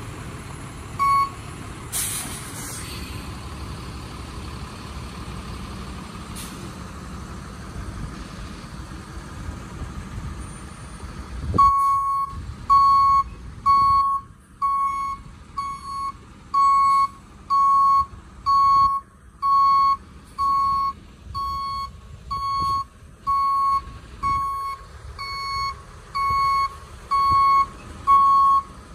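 Tow truck's backup alarm beeping steadily, a little more than once a second, starting about twelve seconds in over the truck's running engine. Before that the engine runs alone, with one short beep about a second in.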